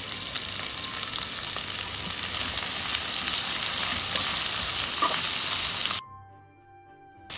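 Diced onion, capsicum and spring onion sizzling in hot oil in a pan while being stirred with a slotted metal spatula. The sizzle cuts off suddenly about six seconds in.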